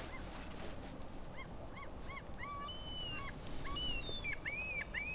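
A flock of wild birds calling, many short arched calls in quick succession, starting about a second and a half in and becoming more frequent towards the end.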